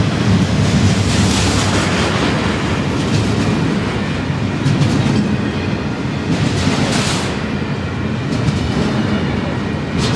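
Double-stack container train's well cars rolling past close by: a steady rumble and clickety-clack of steel wheels on rail, with a louder clatter every couple of seconds.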